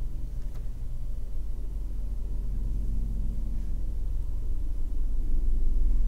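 Steady low hum of background room noise, with no distinct sound of the brush on the paper.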